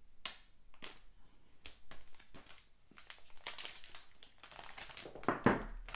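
Clear plastic shrink-wrap being torn open by its pull tab and peeled off a smartphone box, crinkling in irregular crackles, with one louder crackle near the end.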